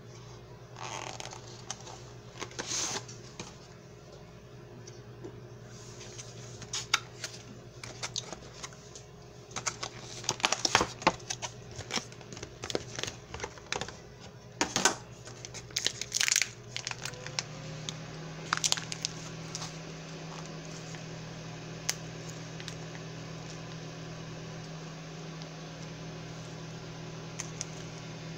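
Plastic food packaging being handled and opened: a bread bag and a plastic tuna-salad tub crinkle, rustle and click in a run of short, sharp sounds, thinning out after about two-thirds of the way through. A low steady hum runs underneath, shifting slightly higher about two-thirds in.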